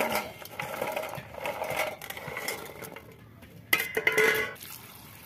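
Dried ber (jujube) fruits clicking and rattling against a stainless steel bowl as they are tipped in and stirred by hand. About four seconds in comes a louder metallic clatter with a brief ring, as the steel plate is set down beside the bowl.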